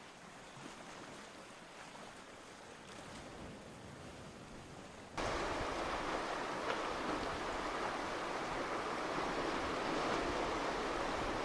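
Steady rushing noise of moving water, which jumps suddenly louder about five seconds in and then holds steady.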